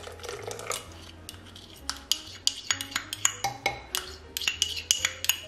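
A spoon clinks and scrapes against a small cup and a ceramic mixing bowl as yeast mixture is poured in and scraped out. The clinks come in a quick, irregular run from about two seconds in, over quiet background music.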